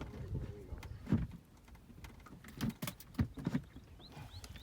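Scattered clicks and knocks, irregular and sharp. Near the end a bird chirps a quick run of short rising notes.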